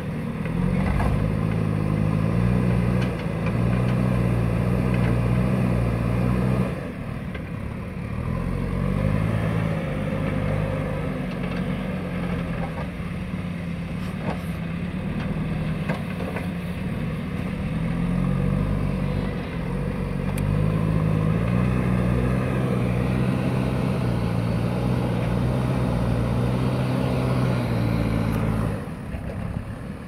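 JCB backhoe loader's diesel engine working hard as the front bucket pushes soil, its pitch stepping up and down with the throttle. It drops back to a lower note about seven seconds in and again near the end.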